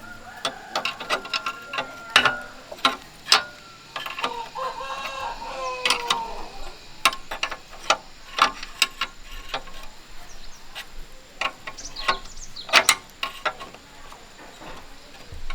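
Irregular sharp metallic clicks and clinks of tools and metal parts being handled, a few of them louder knocks. About five seconds in, a short run of squeaky, falling tones.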